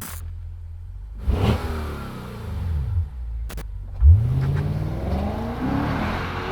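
Lexus RC F's 5.0-litre V8 revving: a sharp rev about a second in that falls away, a short click, then a louder rev a little after the midpoint that climbs in pitch and keeps running.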